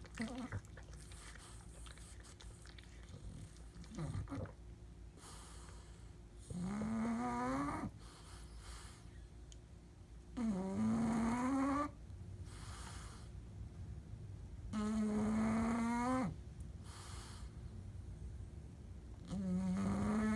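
A bulldog snoring: long, pitched snores about every four seconds, each lasting over a second and rising slightly in pitch, with quieter breathing between. Shorter catches come near the start and about four seconds in, before the snores grow louder in the second half.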